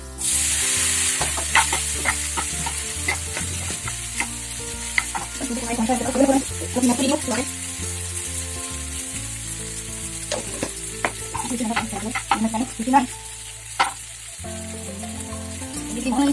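Pasta tipped into a hot oiled frying pan, sizzling loudly as it lands and then sizzling steadily. A spoon stirs and scrapes it around the pan with repeated clicks and clinks.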